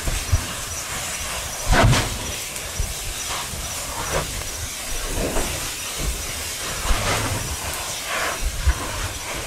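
Fissure 16's lava spatter cone degassing and spitting lava, a steady rushing hiss over a low rumble. Several louder rushes come as spatter is thrown out, the strongest about two seconds in.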